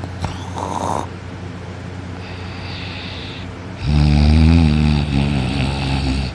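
Loud snoring in deep sleep. A short breathy draw of air comes about half a second in. Just before four seconds in, one long, loud, low-pitched snore begins and lasts about two and a half seconds.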